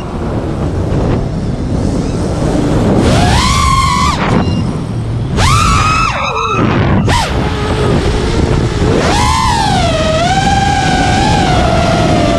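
5-inch FPV quadcopter's brushless motors and propellers whining, the pitch climbing sharply on throttle punches about three and five seconds in and again near nine seconds, and falling away between them as the throttle drops. Heavy wind rush on the microphone underneath.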